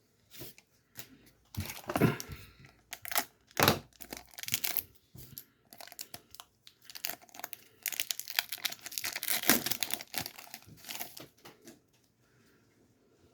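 Pokémon booster pack's foil wrapper being torn open and crinkled by hand: an irregular run of crackles and tearing, busiest about eight to eleven seconds in.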